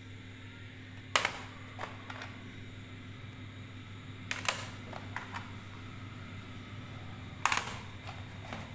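Plastic audio cassette cases clacking as they are picked up and laid onto a stack on a wooden surface: three sharp clacks about three seconds apart, with lighter taps between. A steady low hum runs underneath.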